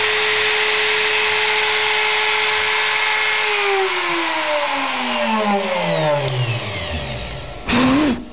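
CNC spindle motor running with a steady high whine, then switched off about three and a half seconds in and spinning down, its pitch falling smoothly over a few seconds. A short, loud burst of noise comes near the end.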